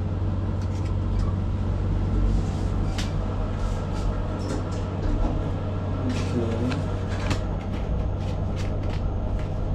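Hotel lift car moving between floors: a steady low hum with scattered light clicks and rattles.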